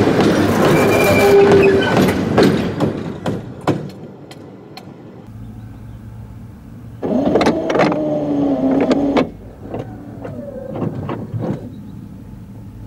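Steel train wheels rolling over the rail right beside the camera, a loud metallic rumble with sharp clicks that fades out by about 4 seconds in. About 7 seconds in comes a second loud burst of rumbling and knocks with a falling tone, lasting about two seconds, followed by a few lighter knocks.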